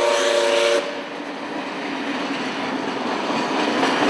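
Steam locomotive whistle sounding a chord of several notes that cuts off about a second in. Then the steady running noise of passenger carriages rolling past on the rails.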